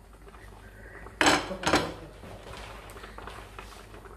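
Cookware clattering: two loud knocks of kitchen utensils or pots, about half a second apart, a little over a second in.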